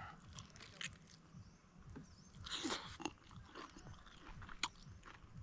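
Close-up chewing and biting by a person eating buffalo ribs: soft wet mouth clicks, with a louder, noisier stretch of chewing about halfway through.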